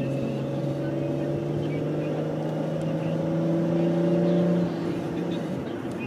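A car's engine and road noise heard from inside the cabin while driving. There is a steady hum that builds a little louder, then eases off a little less than five seconds in.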